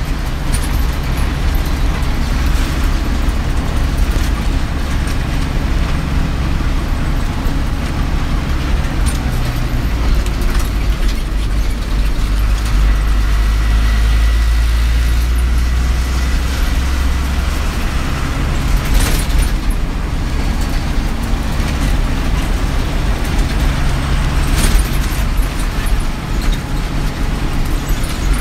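A bus engine and road noise heard from inside the cab while driving: a steady heavy low drone whose engine pitch shifts up and down a few times. Two short knocks come about two-thirds of the way through and near the end.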